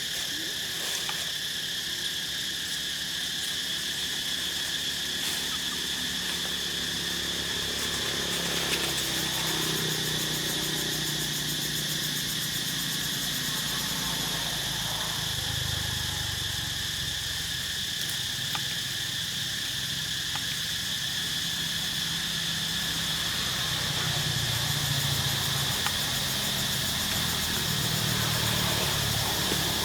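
Steady high-pitched drone of insects over a low, steady motor hum that shifts in pitch about halfway through.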